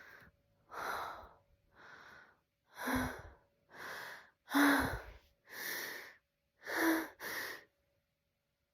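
A woman's hitching, gasping breaths as a sneeze builds from a feather tickling her nose, about eight in a row, several with a short catch in the voice. The sneeze does not come: it fades away.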